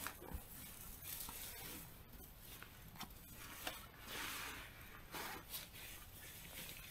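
Soft rustling and scraping of tent fabric and bedding as a person crawls into a small tent and moves about, with a few light clicks from gear being handled.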